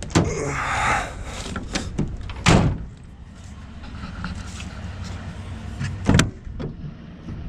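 A car's engine running steadily, with rustling in the first second and two sharp thumps, about two and a half and six seconds in, from car doors shutting.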